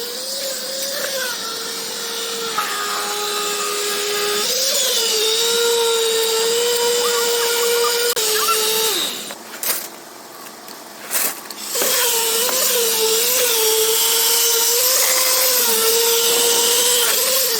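A power tool's motor running with a steady whine whose pitch wavers under changing load. It winds down and stops about halfway through, then starts again a few seconds later.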